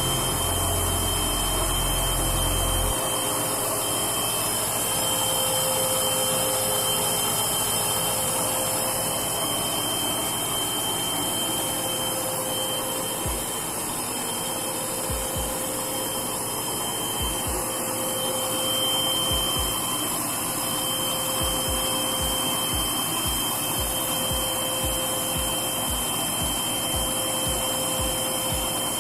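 Washing machine with a newly replaced drain pump running its spin cycle: a steady motor whir with a faint high whine and a hum that swells and fades every second or two. It is the sign that the machine now drains and spins normally.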